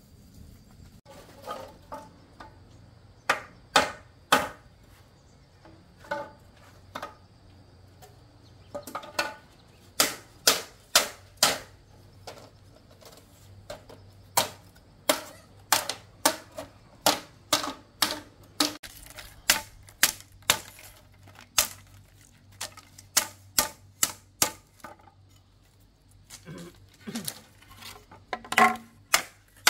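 Chopping: sharp knocks of a blade striking wood. They come in irregular runs of about two strokes a second, sparse at first, with a short pause near the end.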